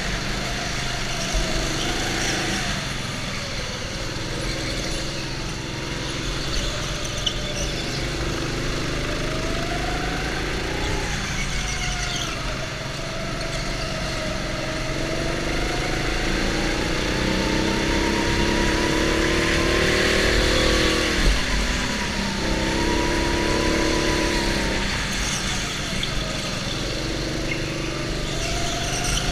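Go-kart being driven hard around a track, its motor pitch climbing and dropping again and again as it speeds up on the straights and slows for the corners.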